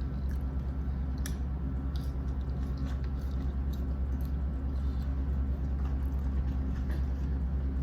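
A person chewing fast food, with scattered small mouth clicks, over a steady low hum.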